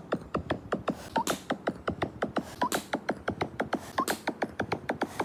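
A cartoon gorilla's chest-pounding sound effect: rapid drum-like thumps, about six a second, each dropping in pitch, with a higher accent about every second and a half.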